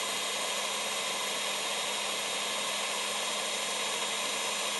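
Electric stand mixer running steadily, a constant motor hum that does not change.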